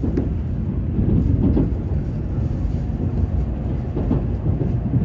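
Train running, heard from inside the carriage: a steady low rumble with a few faint clicks from the rails.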